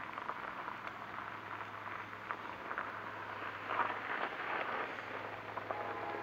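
Small fires on the track ballast crackling with many small ticks, over the faint low hum of a distant approaching train that grows slowly louder.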